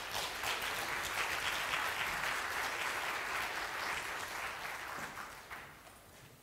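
Audience applauding after a talk, a steady patter of clapping that fades out over the last couple of seconds.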